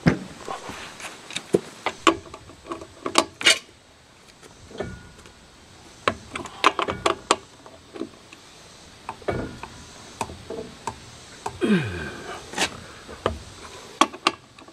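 Steel socket and breaker bar being fitted onto a pickup truck's lug nuts, making a series of irregular sharp metallic clicks and clinks as the socket knocks against the nuts and the aluminium wheel.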